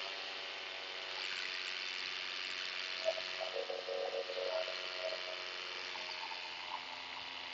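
Paramotor engine and propeller running steadily in flight, with wind rushing over the microphone. A short broken tone comes in about three seconds in and stops about two seconds later.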